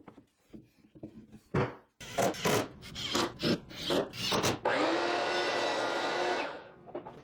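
Sharp wooden knocks and scraping, then a power drill running steadily for about two seconds as it drives small trim screws into the wood.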